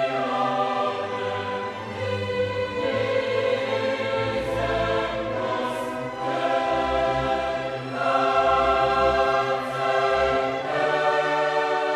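Orchestral music with a choir singing sustained chords that change every second or two.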